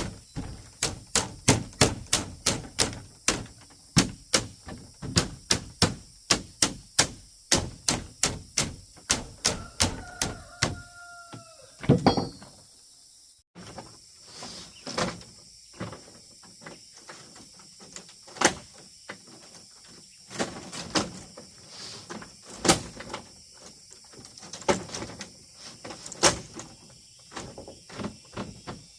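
Repeated sharp tool strikes on wood or bamboo, fast and even at about two to three a second, then slower and irregular after a brief break about halfway through. A short two-note animal call sounds over the strikes a little before the break.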